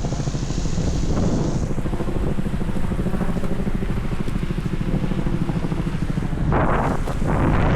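Wind buffeting the microphone: a steady low rumble that surges louder near the end.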